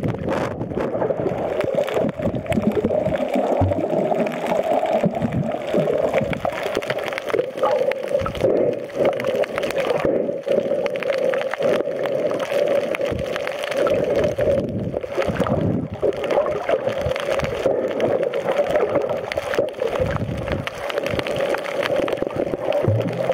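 Muffled water noise and gurgling heard underwater, a steady rushing wash with a constant hum-like band and faint scattered clicks.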